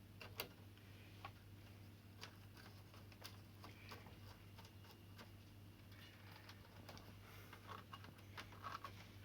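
Near silence with a steady low hum and scattered faint clicks and ticks of wires and screws being fitted to an air conditioner indoor unit's terminal block.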